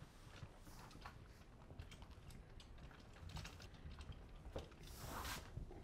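Push broom's stiff bristles brushing across a self-adhered TPO roofing membrane, pressing the sheet down onto the deck to push out wrinkles: faint scratchy ticks, with a louder swish about five seconds in.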